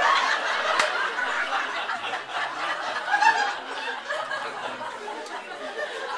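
Comedy club audience laughing at a punchline, loudest at the start and gradually dying down.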